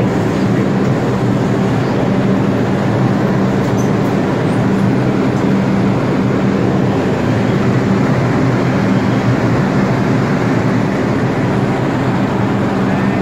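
New York City subway 4 train running through an underground station: a steady rumble of wheels on rail with a constant low hum.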